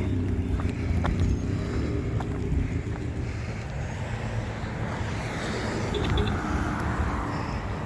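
A motor vehicle running: a steady low rumble, with a rushing hiss that builds and fades in the middle.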